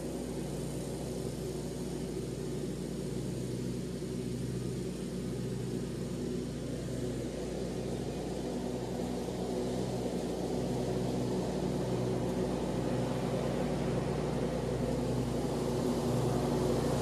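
Commercial lawn mower engine running steadily in the distance, growing gradually louder as the mower comes closer.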